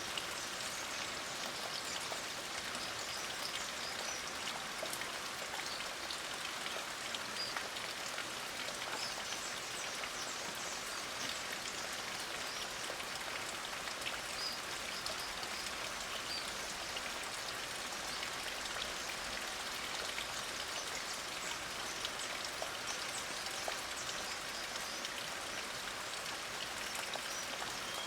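Light rain falling steadily, a fine patter of drops, with a few faint, brief high bird chirps now and then.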